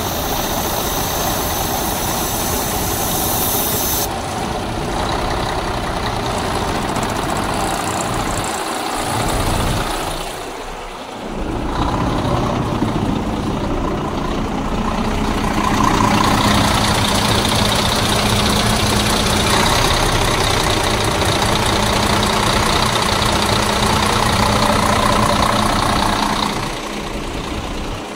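A heavy truck's diesel engine idling steadily, louder in the second half.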